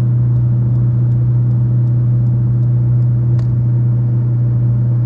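Loud steady low drone inside the cabin of a Fiat Uno Way driving above 100 km/h in gear, one unchanging tone with fainter overtones. It is the noise the owner likens to a whistle, which comes only in gear above 100 km/h and stops when the clutch is pressed, pointing to the drivetrain rather than the engine.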